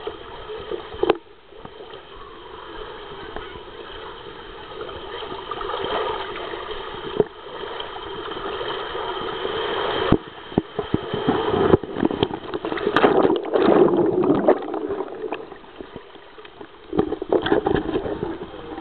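Water rushing and gurgling along a fibreglass water slide as a rider slides down it, with frequent knocks of the body and camera against the channel. Near the end comes splashing as the rider runs out into the pool.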